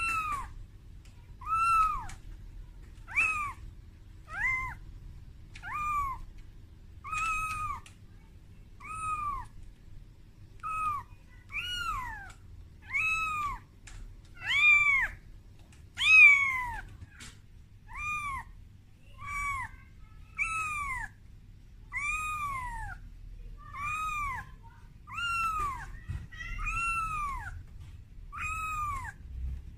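Very young calico kitten meowing over and over in short, high-pitched cries, one about every second and a half, each rising then falling in pitch. These are a frightened kitten's distress calls for its mother.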